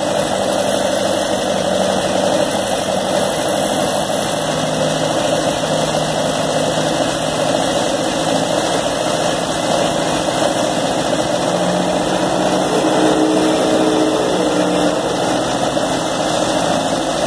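Ford 601 Workmaster tractor's four-cylinder gasoline engine running steadily, throttled up a little above idle, after a full rebuild.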